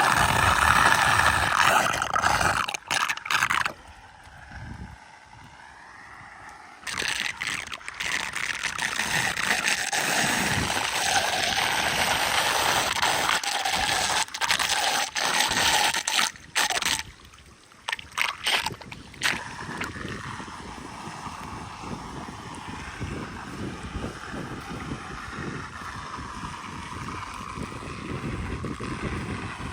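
Floodwater gurgling and rushing down a street storm drain that has been cleared of leaves, with occasional scraping. The sound drops and returns abruptly a few times.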